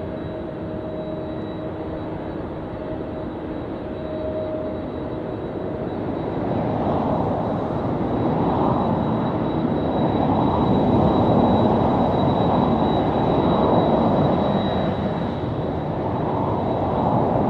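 Boeing 767 jet engines running as the airliner taxis, a steady rushing rumble with a thin high whine. It swells louder about six seconds in and stays strong, easing slightly near the end.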